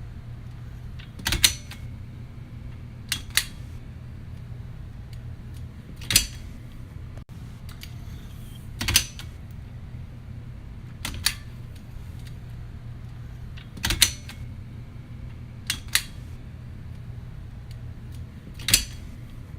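Baby gate being opened and closed: sharp latch clicks and clacks every two to three seconds, some in quick pairs, over a low steady hum.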